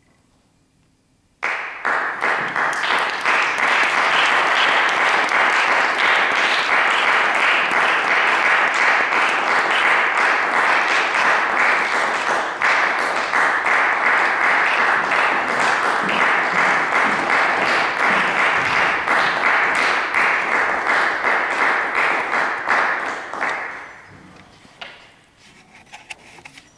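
Audience applauding. After a moment of quiet, the applause breaks out suddenly about a second and a half in, holds steady for a long stretch, then dies away near the end into a few scattered claps.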